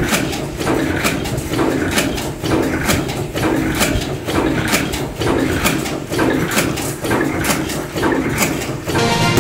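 Bolt-making factory machinery running, with a rhythmic clatter of sharp knocks about twice a second.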